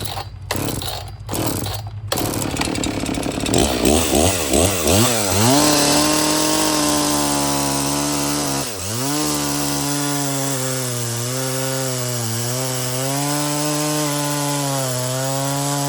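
A few knocks, then a chainsaw starts and revs up and down a few times before running steadily at high revs, cutting through a log section for a bowl blank. Its pitch dips briefly under load about nine seconds in.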